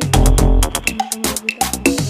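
Background electronic dance music with a heavy bass line and a steady beat.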